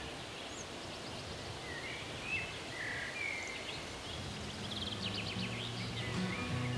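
Small birds chirping outdoors over a faint, even background hiss, with a quick trill about five seconds in. Soft music fades in over the last couple of seconds.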